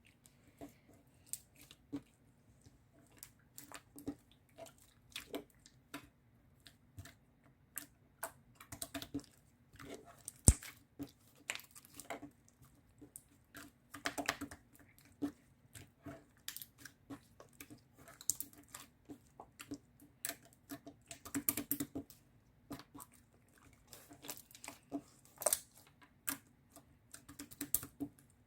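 Irregular light clicks and taps, coming singly and in short clusters, with one sharper tap about ten seconds in.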